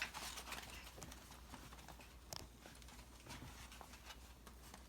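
Faint scattered clicks and rustles from puppies being handled and moving about, with one sharper click about two seconds in, over a low steady hum.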